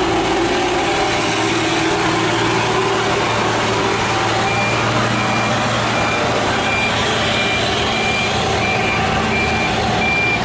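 Diesel engine of a Mitsubishi Fuso bulk cement tanker truck running steadily as the truck rounds a wet hairpin bend. From about four and a half seconds in, a high electronic warning beep repeats about twice a second.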